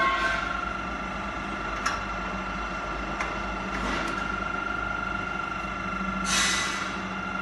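Three-roll profile bending machine running as it rolls a metal tube into a ring: a steady motor hum with a high, even whine. Brief rushes of noise about four and six seconds in and a couple of sharp clicks come from the tube working through the rolls.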